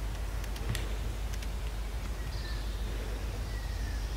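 Outdoor forest ambience: a steady low rumble with a few sharp clicks in the first second and a half, and faint short falling calls, twice, later on.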